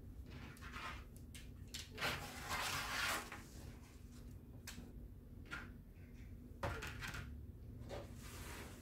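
A ruler and craft tools handled on a tabletop over a foam board: scattered light knocks and taps, with a longer scraping rustle about two to three seconds in and a sharper knock near seven seconds.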